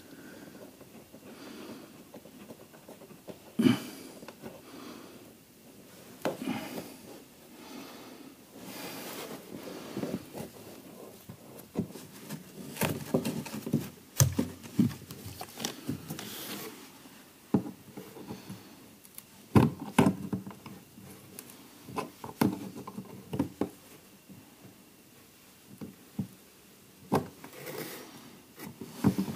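Hand-work noise: irregular clicks, knocks and scrapes of tools and small parts being handled while fitting the air-shock filler valve and air lines. A few sharper knocks stand out, about 4, 14 and 20 seconds in.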